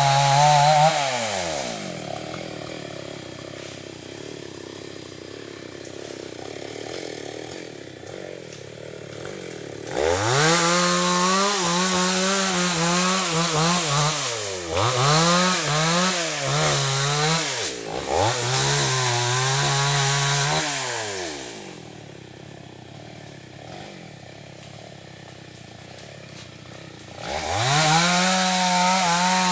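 Two-stroke chainsaw cutting wood. It revs high, drops to idle within the first two seconds, then runs at high speed for about ten seconds with its pitch dipping and recovering several times as it works. It falls back to idle and revs up again near the end.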